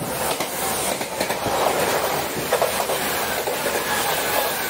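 A JR Series 383 limited-express electric train passing close on the adjacent track, heard from inside a moving Series 115 train: a loud rush of air and wheel noise, with wheels clattering over rail joints.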